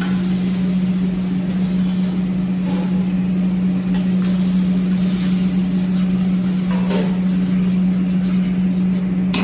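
Steady low machine hum with a hiss over it, running unchanged throughout. A few light clinks come from a steel ladle stirring tomato masala in a steel pot.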